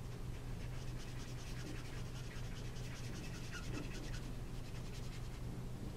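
A Copic alcohol marker's nib rubbing over card in quick, repeated small strokes, a soft scratchy swish, as ink is laid down in circles to fill an area of colour. A steady low hum runs underneath.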